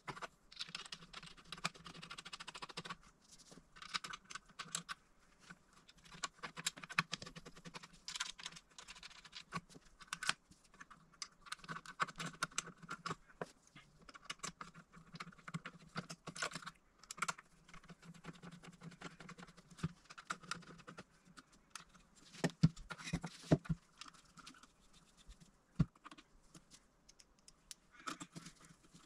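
Irregular small clicks, taps and rustles of hand assembly: screws, a hex key and cables being handled against a laser engraver's metal frame and module. A few sharper knocks come together a little after twenty seconds in.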